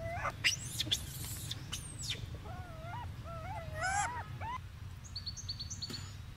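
Macaques giving short, wavering coo-like calls several times, bunched up in the middle, with thin high squeaks and chirps among them and a steady low hum underneath.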